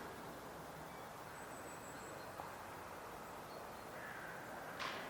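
Faint calls of ravens over a steady outdoor hiss, with a sharp click near the end.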